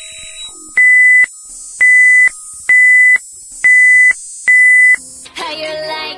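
Five loud electronic beeps on one high tone, each about half a second long, roughly one a second, over a faint high hiss. A short wavering, warbling sound follows near the end.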